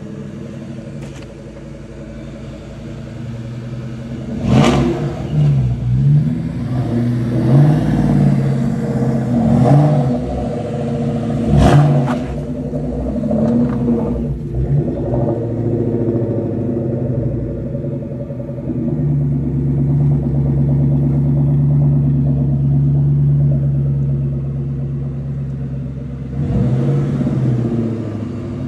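Ford Mustang SVT Cobra V8 running and being revved in repeated rises and falls, with two sharp cracks among the revs. About two-thirds of the way through it settles into a steady, stronger drone for several seconds.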